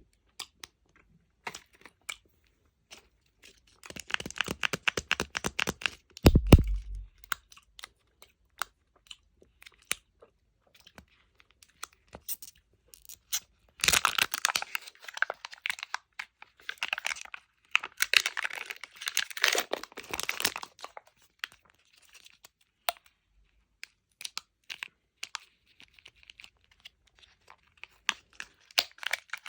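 Candy packaging being handled and opened: wrappers crinkling and tearing in several bursts, with scattered small clicks and one dull thud about six seconds in.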